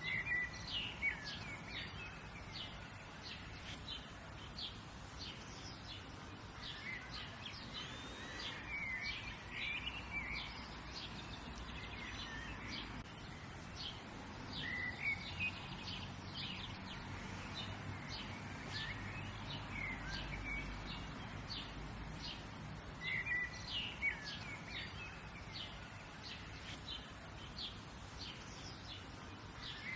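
Several wild birds chirping and singing, with many short, high chirps in quick clusters over a steady low background rumble.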